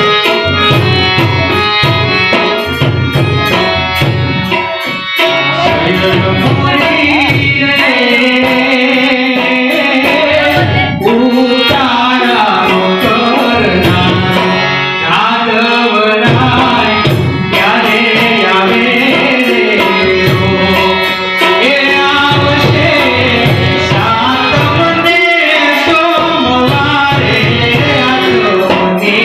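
Gujarati folk song played live on harmonium with a steady tabla rhythm; a man's singing voice comes in about six seconds in and carries the melody over the accompaniment.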